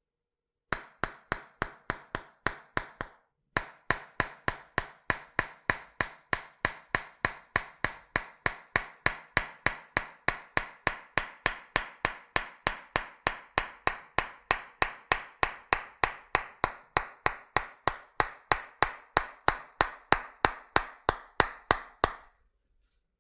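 Tok-sen massage: a wooden mallet knocking on a wooden stick, wood striking wood in a quick, even rhythm of about four strikes a second. There is a short break about three seconds in, and the strikes stop near the end.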